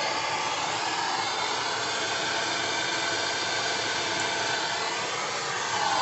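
Steady rushing hiss of a jeweler's torch flame heating a wired billet of 18k gold and sterling silver toward liquid-phase fusion. Near the end it swells briefly, then drops in pitch and falls away as the flame is taken off.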